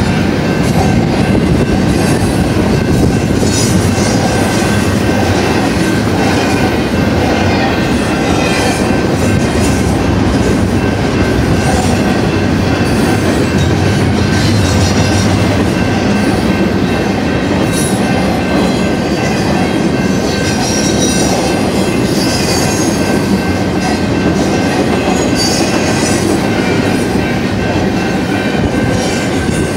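Double-stack intermodal well cars of a freight train rolling past close by: a loud, steady rumble of steel wheels on rail, with intermittent high wheel squeals.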